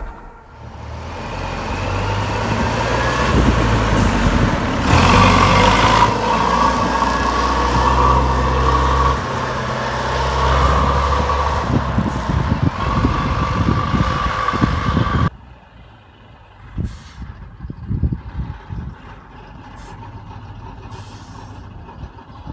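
SKOT OT-64 eight-wheeled armoured personnel carrier's diesel engine running as it drives, picked up on a mobile phone, with a steady high whine over the engine note. About two-thirds of the way through it drops suddenly to a much fainter engine sound with scattered knocks.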